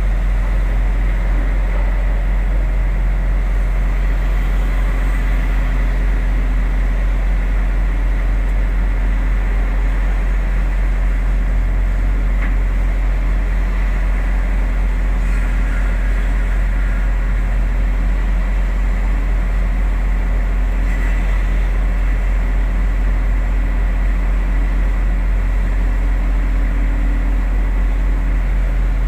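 Heavy diesel engine of earth-moving equipment running steadily at a constant low drone, with no clear revving or impacts.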